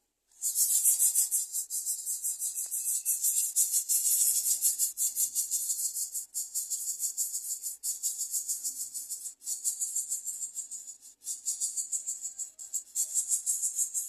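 Shrill insect chorus, a fast pulsing buzz high in pitch, starting abruptly about a third of a second in and carrying on steadily.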